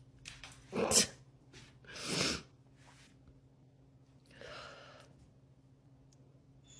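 A woman sneezing twice, about a second apart, the first sneeze the louder, followed a couple of seconds later by a soft breath.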